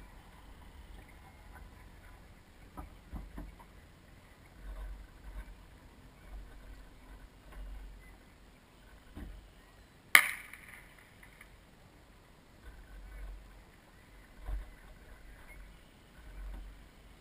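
Water slapping and rumbling against the hull of a Soling 1 meter model sailboat as it sails, picked up by a GoPro in its housing on the deck, in irregular low surges with a few faint clicks. One sharp knock about ten seconds in is the loudest sound.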